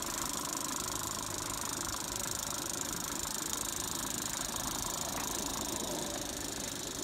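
A small 16mm-scale live-steam garden-railway locomotive running on 32mm-gauge track with a coach: steady hissing steam and fast chuffing exhaust, with the wheels rattling over the rails.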